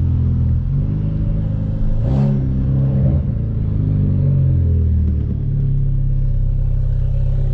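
Hyundai Veloster Turbo's turbocharged 1.6-litre four-cylinder running through a catless downpipe while driving, a steady engine note with a brief sharper sound about two seconds in; a little after five seconds the note drops lower and settles.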